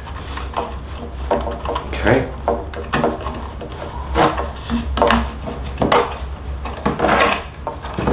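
Stiff rawhide lacing being pulled and unwound from the back of a rawhide frame drum, dragging against the hide and wooden rim in irregular scrapes and rubs. A steady low hum runs underneath.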